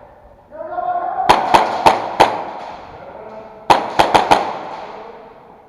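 Airsoft guns firing two quick volleys of four sharp shots each, the second about two and a half seconds after the first, each volley trailing off in a long echo.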